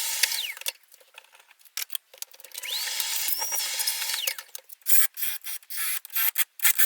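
Cordless drill working M8 holes in an aluminium plate. Its motor winds down just after the start, spins up again about two and a half seconds in, runs for over a second and winds down. Clicks and knocks follow near the end.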